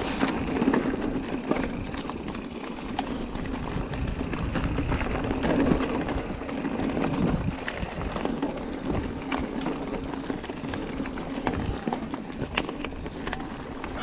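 Mountain bike being ridden over a rough dirt trail: a steady, noisy rumble of tyres and rattling bike, with many scattered clicks and knocks.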